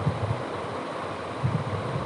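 Plastic spatula stirring thick sauce around a steel pan: soft, irregular low thuds and scrapes over a steady background rumble.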